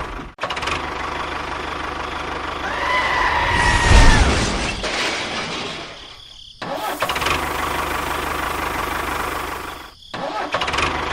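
A small engine running, cut into several segments by abrupt breaks. Around three to four seconds in it swells louder, with a whining tone that rises, holds and falls.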